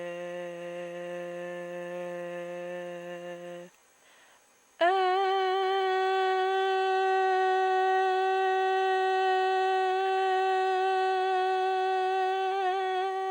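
A long hummed note held at a steady pitch, which stops a few seconds in. After a second of near silence a louder, higher hummed note starts with a slight upward bend and holds steady, wavering a little near the end.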